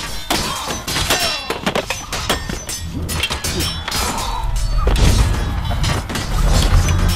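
Battle din of close combat: rapid clashing blows of weapons with ringing metallic strikes and heavy thuds, over men's yells and a low music score.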